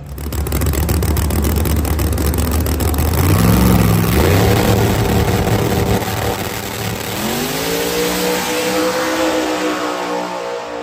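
Drag-radial race cars at full throttle, loud engine note climbing in pitch again and again as they pull through the gears.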